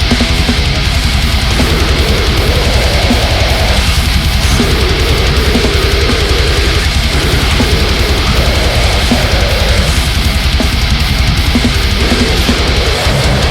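Death metal band playing: distorted electric guitars riffing over fast, dense drumming, loud and steady throughout.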